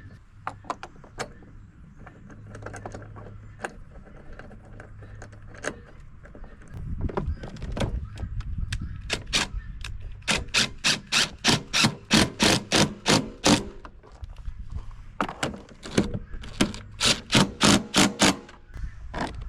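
Two long runs of sharp, evenly spaced clicks, about four or five a second, over a low rumble, as screws are driven back into the generator's plastic cover.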